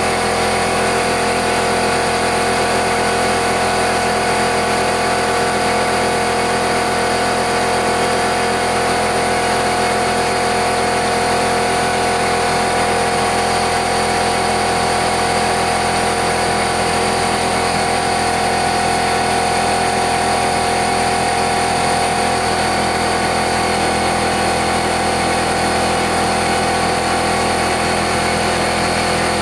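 An 800 W CNC router spindle runs a 0.093-inch four-flute end mill at 20,000 rpm, facing off a round 6061 aluminium bar. The cut gives a steady whine that does not change.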